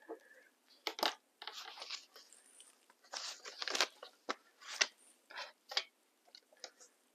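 Paper money and a clear plastic cash envelope being handled, rustling and crinkling in short scattered bursts.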